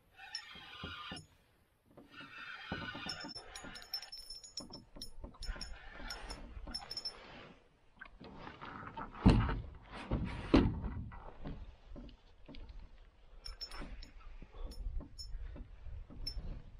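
Fishing reel being wound and tackle handled in a canoe while a trout is played on the line: a run of small clicks and rattles. Two loud knocks come a little over a second apart about halfway through.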